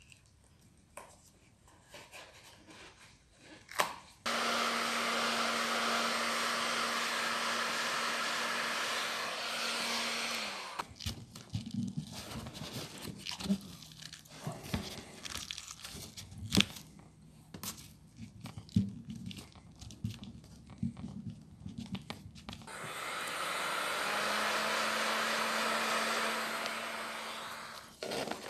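Hot-air heat gun blowing with a steady hum, switched on abruptly about four seconds in and run for about six seconds, then again near the end, fading in and out, to soften the glue of an old dry suit wrist seal. Between the two runs, irregular crackling, clicking and tearing as the old seal is picked and peeled off the sleeve.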